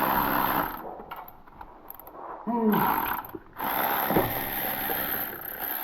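Ratchet wrench clicking in two spells, a short one at the start and a longer one from about halfway on, as spark plugs are turned out of the engine.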